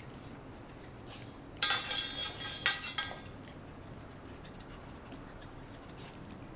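A short burst of metal clinking and clattering, about a second and a half long, a little over a second and a half in, with sharp knocks at its start and near its end. A single faint click comes near the end.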